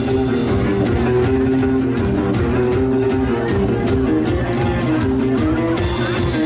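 Band music with guitars, bass and a steady beat of percussion.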